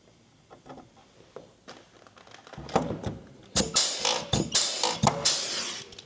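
Pneumatic rivet gun setting blind rivets into a camper canopy's metal panel: a few light clicks, then about three loud strokes in the second half, each a sharp snap followed by a hiss of air.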